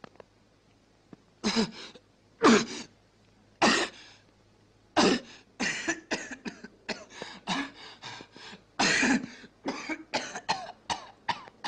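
A man coughing hard in fits: a few single coughs spaced about a second apart, then a quick, uneven run of coughs through the second half.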